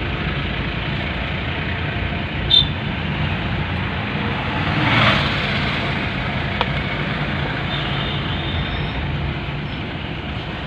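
Road noise inside a moving car: the steady rumble of the engine and tyres. There is one short, sharp sound about two and a half seconds in, and a swell of louder noise that rises and falls about five seconds in.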